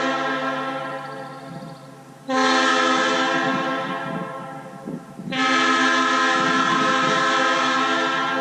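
Nathan PK3 three-chime locomotive air horn with new cast P1 and P4 bells and a raised-letter K1L bell, sounding its chord in long blasts. One blast dies away over the first two seconds, a second starts about two seconds in and fades out, and a third starts about five seconds in. Each blast starts sharply and then fades gradually.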